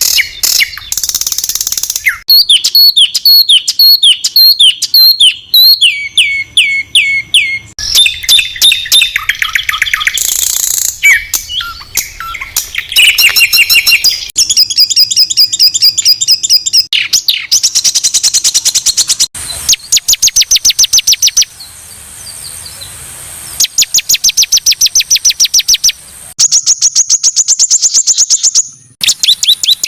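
Songbird song for training competition birds: loud, harsh, high-pitched phrases of fast repeated notes and rattling trills. The segments are cut together and start and stop abruptly, with a short quieter gap about two-thirds of the way through.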